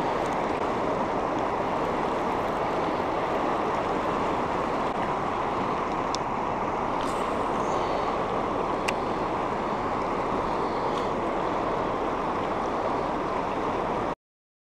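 Steady rush of a fast river current over riffles, with some wind on the microphone and a few faint ticks over it. The sound cuts off abruptly near the end.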